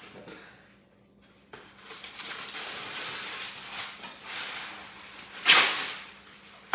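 Baking paper crinkling and rustling as it is handled, with one brief, much louder crackle about five and a half seconds in.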